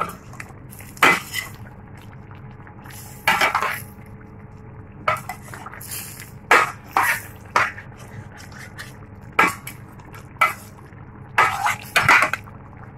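A cooking utensil scraping and clinking against a metal pot in irregular strokes as a chicken curry is stirred, over a steady low hum.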